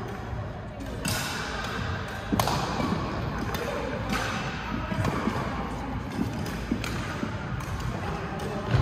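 Badminton play on a hall court: a few sharp racket strikes on the shuttlecock, a second or two apart, with footfalls thudding on the floor between them.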